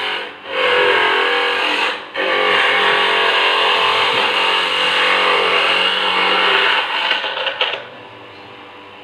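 Small electric coconut grater grinding chunks of fresh coconut meat: a loud, steady mechanical grinding with a motor hum. It dips briefly twice in the first two seconds, then drops much quieter near the end.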